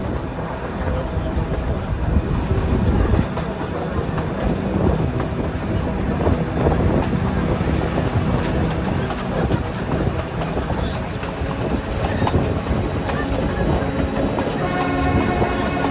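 Nilgiri Mountain Railway narrow-gauge train running along the track: a continuous rumble with the clatter and clicks of wheels over rail joints. A steady pitched sound joins about a second before the end.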